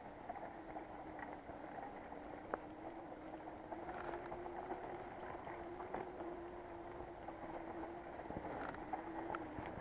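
Electric mountain bike ridden over a wet, leaf-covered dirt trail: tyre noise with small clicks and rattles from the bike, over a steady motor whine that rises slightly in pitch midway and stops shortly before the end.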